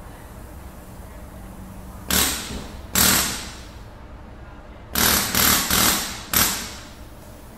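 Hammer blows in a garage workshop: two single strikes about a second apart, then three quick blows in a row and one more, each ringing out briefly.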